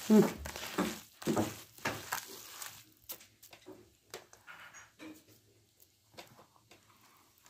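Hands squeezing and kneading a wet filling of chopped vegetables and grain for stuffed vegetables: a run of squishing strokes about twice a second for the first three seconds, then softer, scattered squelches and clicks.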